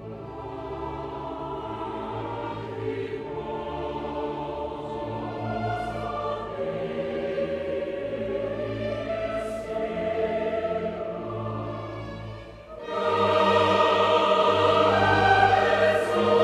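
Background music: choral, operatic-style singing over orchestral accompaniment, held softer at first and swelling suddenly louder near the end.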